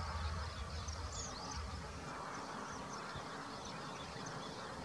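Outdoor ambience with faint, high, short chirps of small birds scattered throughout, over a steady hiss. A low rumble drops away about two seconds in and comes back near the end.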